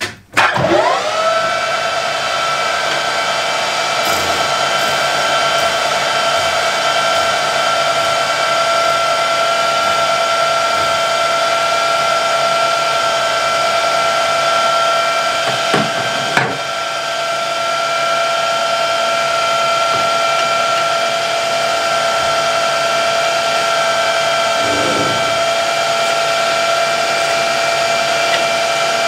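Small metalworking lathe starting up: its whine rises quickly in pitch about half a second in, then holds steady. A few brief knocks of tool work come at the exhaust tube, twice near the middle.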